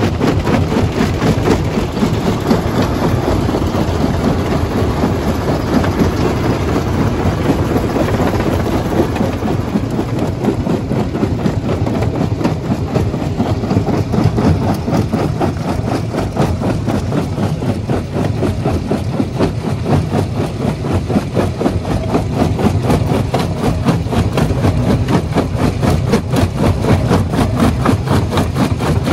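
Jaw crusher running and crushing rock: a loud, continuous machine clatter with a fast, even pulse from the swinging jaw.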